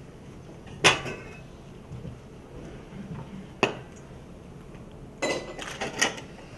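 Dishes and cutlery clinking: a sharp, ringing clink about a second in, a second one past the middle, and a short run of clatter near the end.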